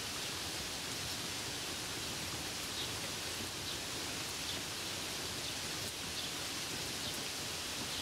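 Steady rain falling on grapevine leaves, an even hiss with a few faint drop ticks.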